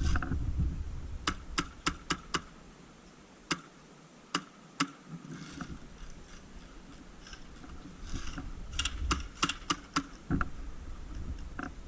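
Airsoft guns firing single shots: sharp, dry cracks in irregular groups, a quick run of five, a few lone ones, then a tight cluster of about seven. Low rumbling handling noise comes at the start and again just before the last cluster.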